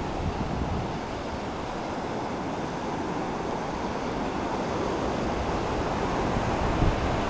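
Ocean surf: a steady wash of breaking waves, slowly swelling toward the end.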